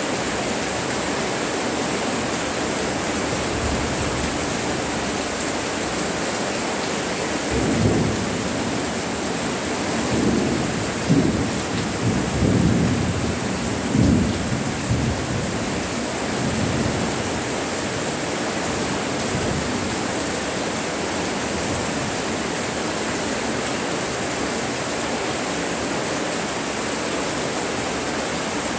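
Steady rain falling, with thunder rumbling in several rolls between about eight and seventeen seconds in.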